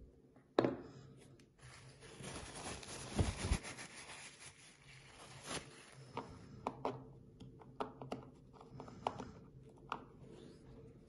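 Handling noise from a brass lock cylinder and its plug being worked by hand over a plastic pin tray. A sharp click comes about half a second in, then a few seconds of rubbing and scraping, then a run of light clicks of small metal parts.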